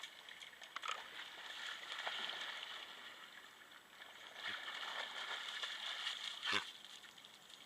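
Water sloshing and gurgling, swelling twice, with a sharp knock about six and a half seconds in.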